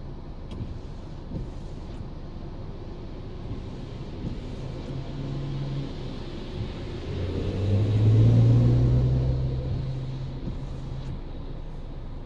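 A large vehicle wading through floodwater passes close alongside. Its engine drone grows louder to a peak about eight seconds in, then fades, over a steady wash of water and traffic noise.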